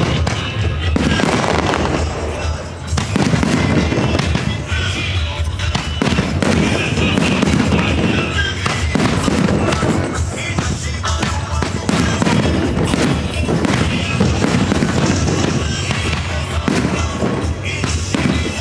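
Aerial fireworks bursting in a rapid, continuous series of bangs and crackles, over music played for the show.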